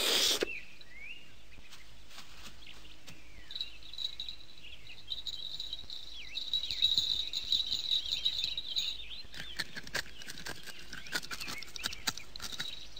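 Cartoon forest ambience: birds chirping in short curving calls over a high, steady insect-like trill through the middle. There is a brief burst of noise at the start and a run of light ticks near the end.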